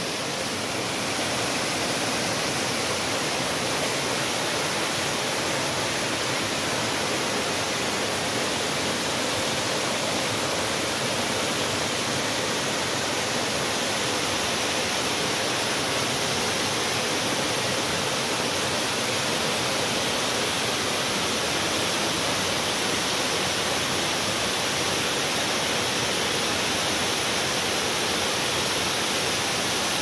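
Waterfall pouring down a steep rock face into a pool: a steady, even rush of falling water.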